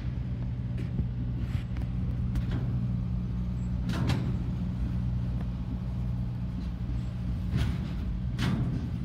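Freight train of refrigerated boxcars rolling past: a steady low rumble of the cars, with a few sharp clacks from the wheels, the loudest about four seconds in and two more near the end.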